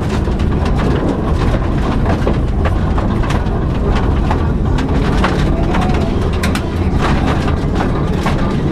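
Subaru Impreza rally car running hard on a stage: the engine and road noise make a loud, steady din, with many sharp clicks and knocks scattered through it.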